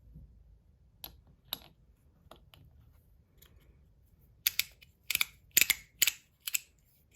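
Zirconium YEDC ratchet/haptic fidget coin being turned in the hand, clicking. A few faint clicks come first, then from about four and a half seconds a run of loud, sharp ratchet clicks at roughly two a second.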